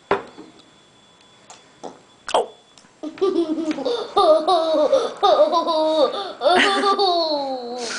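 A young child laughing: a couple of short sounds early, then from about three seconds in a long run of high, pitch-bending laughter that slides down in pitch near the end.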